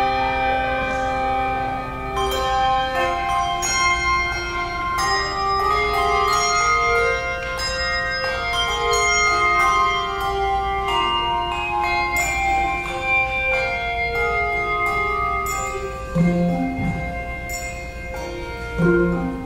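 Handbell choir ringing a piece of music: many bright bell notes struck in turn, overlapping and ringing on as they fade, with a couple of short, lower notes near the end.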